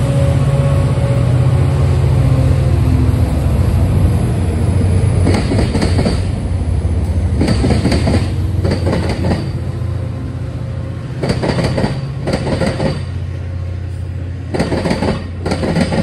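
Metra commuter train pulling into a station: the diesel locomotive's engine runs with a steady low drone. Then, as the bi-level gallery coaches roll past, their wheels clack over rail joints in quick pairs, about every second or two.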